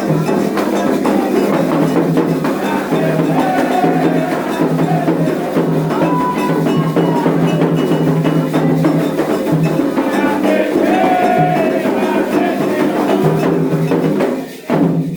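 Drum and percussion music with voices singing over it. It breaks off suddenly just before the end.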